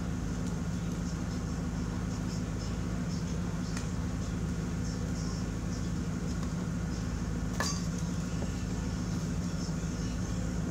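A steady low mechanical hum throughout. About seven and a half seconds in there is one sharp knock, as a wooden board is handled beside the truck.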